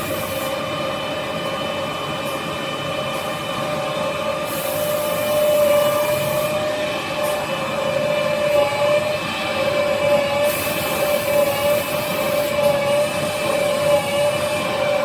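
Kitchen-towel converting machine running: a steady mechanical whine with one strong constant tone and several higher ones, over a hiss that comes and goes.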